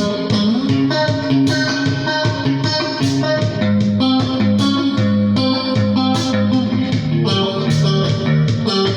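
Electric guitar through a chorus effect, playing a steady run of picked notes in F-sharp minor, several notes a second.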